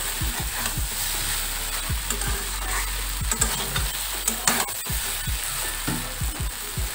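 A spatula stirring and scraping a stir-fry of long beans, potatoes and prawns around a metal kadai, with the food sizzling steadily in the hot pan and a few sharp scrapes against the metal.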